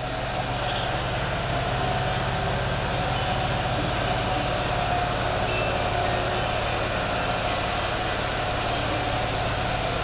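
Steady mechanical hum of running machinery, even throughout, with a low drone and a faint higher tone.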